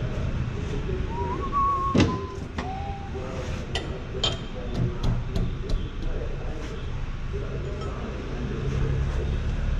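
Steel parts of an Ammco 4000 brake lathe and a brake rotor being handled: a short squeak about a second in, one sharp metal knock about two seconds in, then a run of light clinks as the rotor is fitted onto the arbor.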